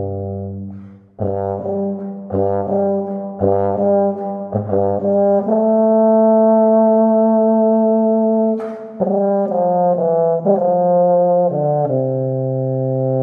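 Solo tuba playing a smooth legato etude: a string of short notes, a long held higher note, a brief break near two-thirds through, then several notes leading down into a long sustained low note near the end.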